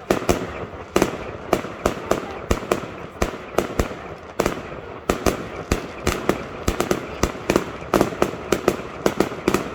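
Fireworks display: a rapid, irregular run of sharp bangs, several a second, each with a short echoing tail.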